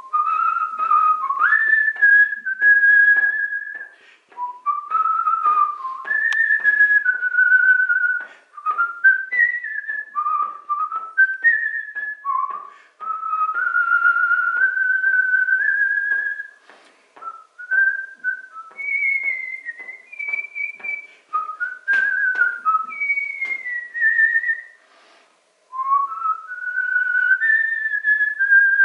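A man whistling a melody by mouth (artistic whistling): one clear pure tone moving up and down through a tune, phrase after phrase with short pauses between phrases.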